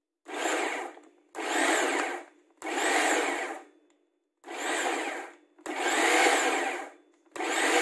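Electric food processor pulsed six times in bursts of about a second each, with short gaps, coarsely chopping onion, tomato, ginger and green chilli rather than grinding them to a paste.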